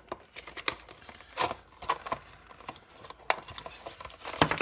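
Handling noise from unboxing: plastic packaging crinkling, with scattered small clicks and taps. The loudest click comes near the end.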